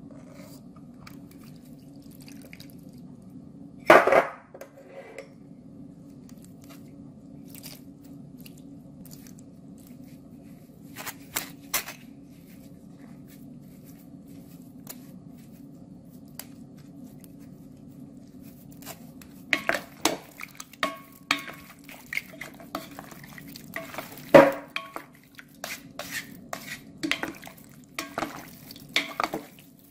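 Kitchen utensils knocking and clinking: a metal spoon pressing ground galangal through a wire mesh sieve, and wooden spatulas tossing chunks of marinated fish in a glass bowl. A single loud knock comes about four seconds in, and frequent knocks and clinks fill the last third, over a steady low hum.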